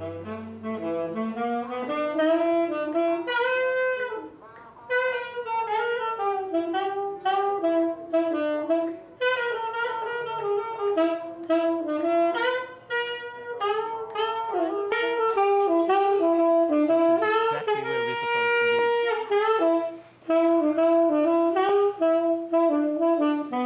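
A single saxophone playing a jazz melody in phrases, with short breaks between them and one long held note near the end.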